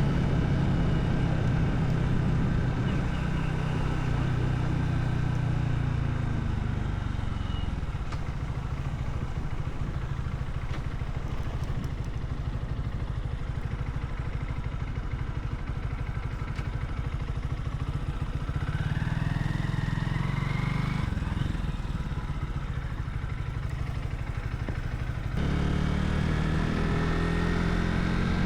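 Vehicle engine and road noise while driving, a steady low hum. About nineteen seconds in, a whine rises in pitch as the vehicle speeds up.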